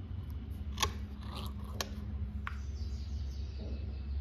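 Hands handling leather and small tools: three sharp clicks, the first about a second in and the other two over the next second and a half, with soft rustling between, over a steady low hum.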